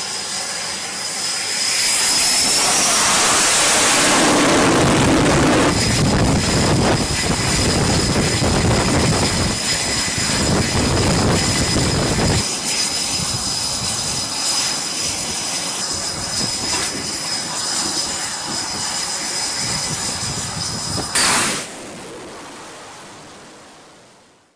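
Jet aircraft engines running on a carrier flight deck: a loud, steady rush of jet noise with a high whine that rises about two seconds in. A brief louder burst comes near the end before the sound fades out.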